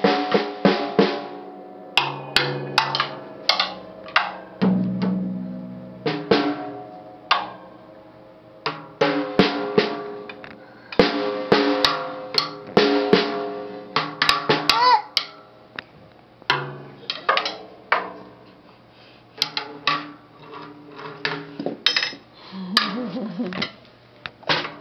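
Acoustic drum kit struck unevenly by a toddler with a drumstick: quick runs of tom and snare hits with ringing drumheads, broken by short pauses.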